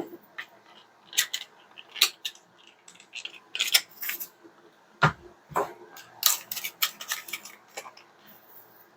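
Hard plastic toy playset pieces being handled, clicking and knocking against each other in an irregular string of sharp clicks.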